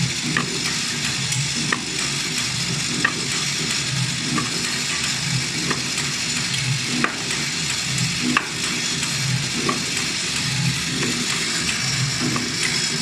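FEDA high-speed automatic flat-die thread rolling machine running with its vibratory bowl feeder, rolling threads on M10 bolts: a steady dense rattling hiss over a pulsing low rumble, with irregular sharp metallic clicks.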